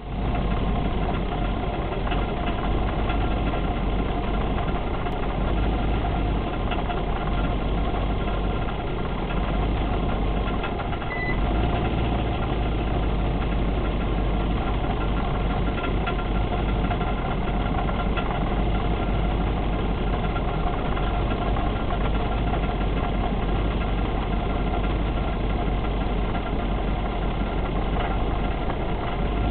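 Limousine running with a steady low rumble and a constant faint whine: an unexplained noise whose cause the owner is asking about.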